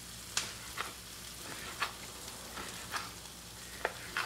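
Shrimp and bell pepper frying in butter in a pan: a low, steady sizzle with a few sharp clicks scattered through it.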